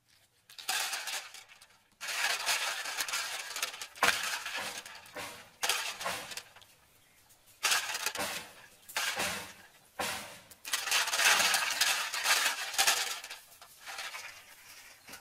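Snail shells being scrubbed by hand in a metal basin of water: shells clinking and grating against each other and the basin, with water sloshing, in repeated bursts with short pauses between them.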